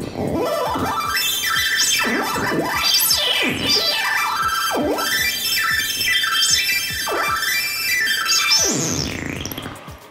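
Arduino-based homemade synthesizer making harsh, noisy electronic sounds, its pitch swooping down and up again every second or so, then fading near the end.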